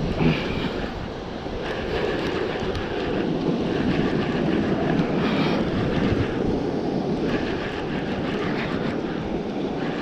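Wind buffeting the microphone over surf washing on the rocks, a steady rushing noise that swells in the middle.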